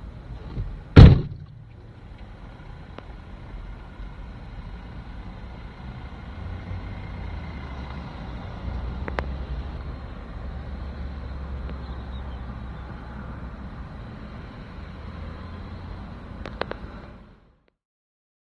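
A car door slams shut about a second in, followed by a car engine running with a steady low hum and a couple of light clicks. The sound cuts off abruptly near the end.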